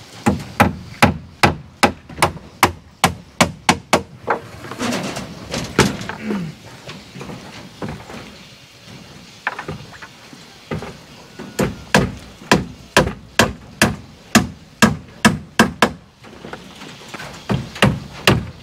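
Hammer driving nails into the wooden edge formwork of a concrete bridge deck: runs of sharp blows about three a second, with a lull of a few seconds in the middle.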